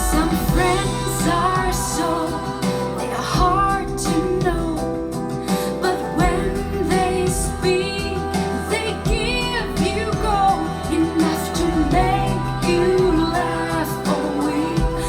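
Pop song with a woman singing over sustained chords and a steady bass line, played back through Dynaudio Contour 1.3 SE loudspeakers.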